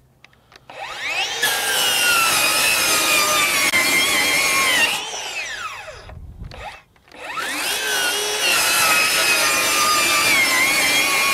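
Ryobi One+ HP 18V brushless 7-1/4-inch circular saw with a Diablo blade making two cuts through 3/4-inch plywood. Each time it whines up to speed, runs loud and steady through the wood while pushed hard without stalling, and winds down with a falling whine. The second cut starts about seven seconds in.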